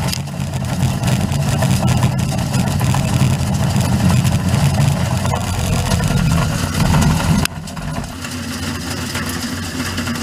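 Slow-speed plastic granulator, its rotor driven directly by a geared motor, grinding glass-filled nylon parts: a steady low mechanical hum with a dense crackle of parts being cut. A little past two-thirds of the way through, the sound drops suddenly to a quieter, steadier hum.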